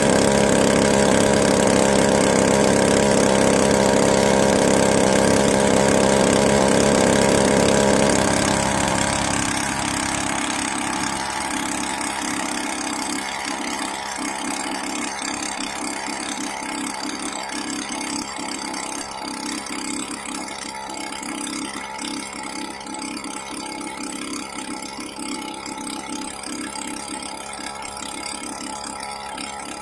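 Fiberglass skiff's boat motor running noisily and steadily. About eight seconds in it drops to a lower, quieter running, with an even pulsing that carries on to the end.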